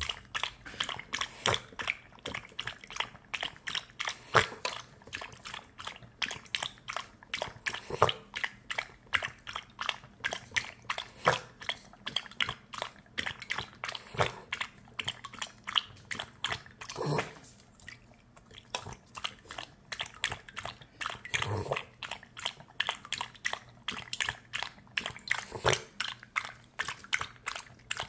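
Small dog lapping water from a stainless steel bowl: quick wet laps, about three to four a second, with a short pause a little past halfway.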